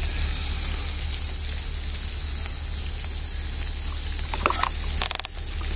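Outdoor field ambience: a steady high-pitched hiss over a low rumble, with a short pitched call about four and a half seconds in and a quick run of clicks soon after.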